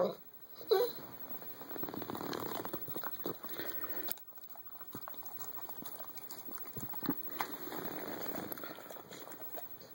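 Dog begging for food: a short whimper under a second in, then quieter breathing and small clicks.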